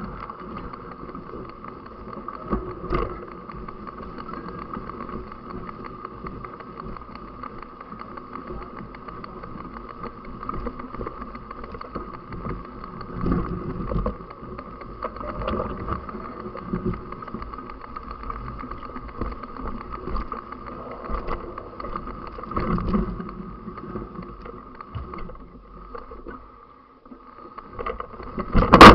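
Steady riding noise with a constant whine, low rumble and irregular knocks and bumps, and one sharp loud hit at the very end.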